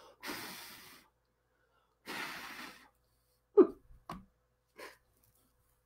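Two breathy exhales, each under a second, one near the start and one about two seconds in, followed by a short hummed vocal sound and a couple of fainter ones.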